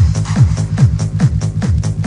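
Fast electronic dance music: a deep kick drum dropping in pitch on every beat, about two and a half beats a second, over a steady bass line.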